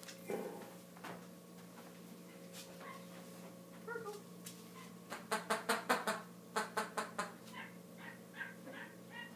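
Puppy giving small whimpers, then a quick run of about nine high yips around the middle, followed by a few more faint whimpers.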